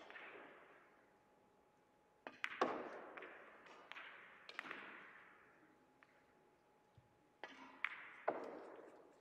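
Russian pyramid billiard balls clacking: a light cue strike, then a series of sharp ball-on-ball and cushion knocks, the loudest about two and a half seconds in. A few more knocks come near the end. Each rings on briefly in the hall.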